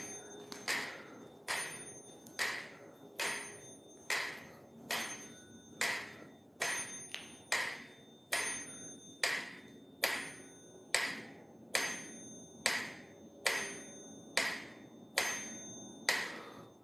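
Mechanical pendulum metronome ticking steadily, a little faster than one tick a second, each tick sharp with a short ringing tail.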